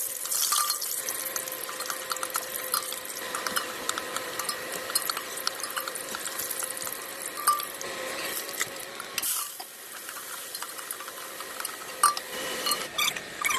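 Water running from a kitchen tap and splashing in a sink, with many small clinks and knocks. It eases off briefly about nine seconds in, then picks up again.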